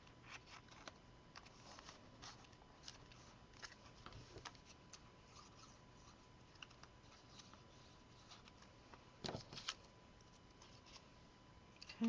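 Quiet handling of cardstock and paper: faint scattered rustles and taps as pieces are pressed and slipped into place, with a louder rustle about nine seconds in, over a faint steady tone.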